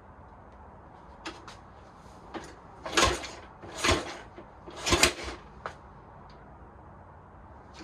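Triton's Triumph parallel-twin engine being turned over for a start, giving three loud short bursts about a second apart with a few lighter mechanical clicks around them, firing but not catching. The owner suspects the ignition timing is out.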